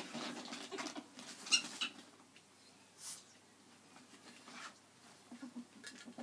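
Two ferrets scuffling on carpet, one wriggling inside a cloth sock: irregular pattering of paws and rustling of fabric, busiest in the first two seconds and again near the end.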